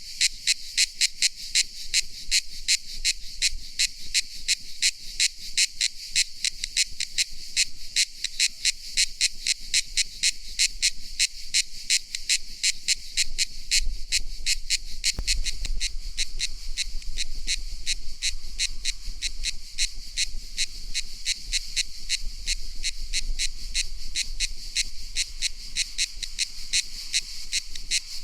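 Cicada calling: a high-pitched buzzing pulse repeating evenly about three times a second, the pulses running together into a more continuous buzz about halfway through.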